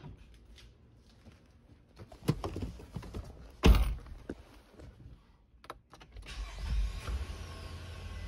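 An Infiniti car door shuts with one heavy thump, then about six seconds in the engine starts and settles into a steady low idle heard from inside the cabin.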